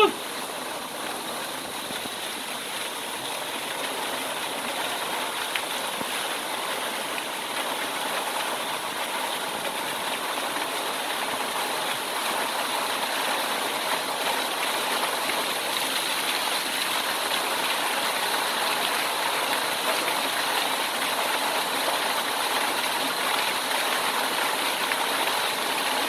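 Small waterfall pouring down a rock face into a plunge pool: a steady rush of falling water, growing slowly louder.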